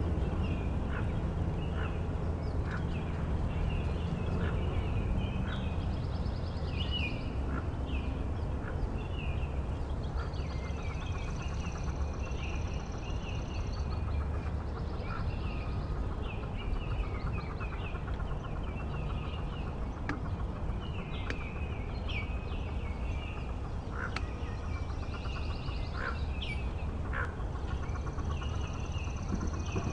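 Hooded merganser ducklings peeping: many short, high calls repeated irregularly, over a steady low rumble.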